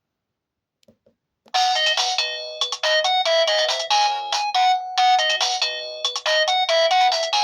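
Pantech PG-C120 cell phone playing one of its built-in ringtones: a fast electronic melody of short notes, several sounding at once, starting suddenly about a second and a half in. Before it there is silence with a couple of faint clicks.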